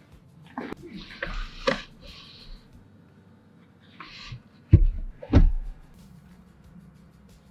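Handling noises: rustling and light knocks, then two heavy thumps about five seconds in.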